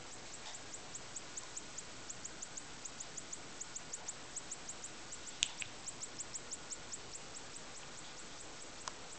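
Car strobe light kit's flash tubes ticking faintly as they fire in an alternating pattern, a quick run of high ticks at about five to seven a second that fades near the end. One sharper click comes about halfway through.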